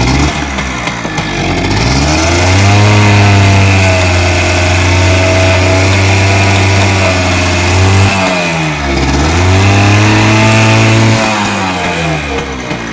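H100S motorcycle engine revved up and held at high revs twice, dropping back to idle between the two and again near the end. The mechanic says a new original ignition coil and a carburettor adjustment have cured its misfire.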